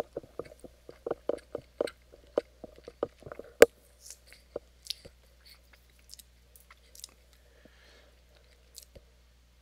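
A man chewing a bite of food with hot sauce on it, close to a headset microphone: short chewing clicks about four a second at first, slowing and thinning out after a few seconds.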